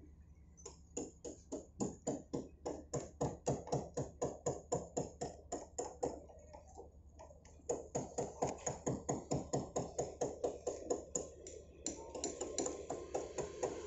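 Rapid, even knocking, about four strokes a second, in two runs with a short pause between them. A motorbike approaches near the end.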